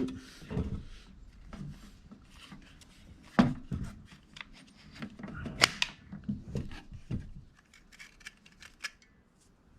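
Scattered clicks and knocks of hands handling a belt knife sharpener as its sanding belt is taken off, with two sharper knocks about three and a half and five and a half seconds in.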